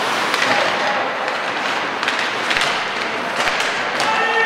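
Ice hockey play in a rink: skates scraping the ice and scattered sharp clacks of sticks and puck, over the hall's steady noise. A raised voice calls out near the end.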